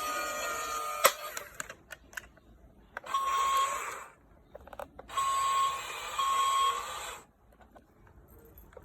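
Small electric gear motors of a remote-controlled toy excavator whirring in short runs: a run winding down at the start, a sharp click about a second in, then two bursts of whirring with a steady high whine, each one to two seconds long.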